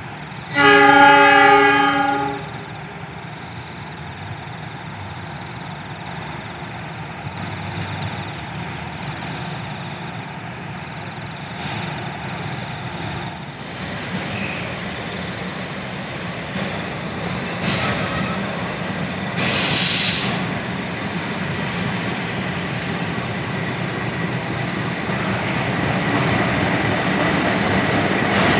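Diesel train horn sounding once for about two seconds near the start, then the steady rumble of a train running through the station, with two short hissing bursts around the middle. The diesel locomotive's rumble grows louder near the end as it comes past.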